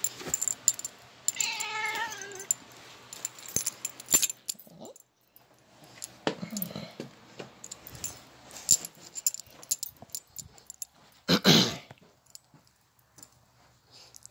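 A house cat meows, one falling call about a second and a half in and a lower, weaker one around six seconds. Scattered short clicks and jingles run through it, and a loud brief thump or rustle comes about eleven seconds in.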